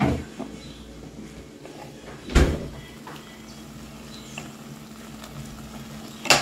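Kitchen knocks while cooking: one dull knock about two and a half seconds in and a sharp click near the end, over a steady low hum.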